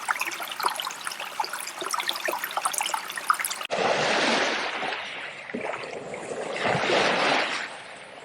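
Water trickling and splashing with dense fine crackling, then, after an abrupt cut about three and a half seconds in, swells of rushing water that rise and fall twice.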